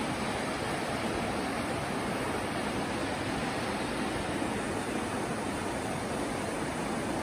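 Steady, even rushing of a mountain stream flowing through a snowy gorge.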